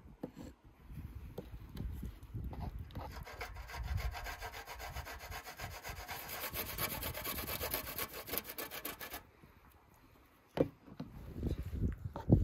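Quick repeated rasping strokes of food being grated on a stainless steel box grater, lasting several seconds before stopping. A couple of sharp knocks follow near the end.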